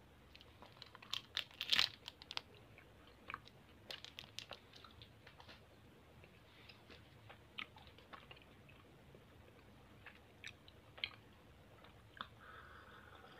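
Light, scattered crinkles and clicks of wrapped candies and plastic being handled over a plastic toy truck bed. They are densest about two seconds in, then thin out to a few isolated ticks.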